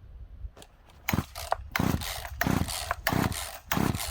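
Poulan P3416 34cc two-stroke chainsaw being pull-started on full choke: about five quick pulls of the recoil starter cord, each spinning the engine over, starting about a second in.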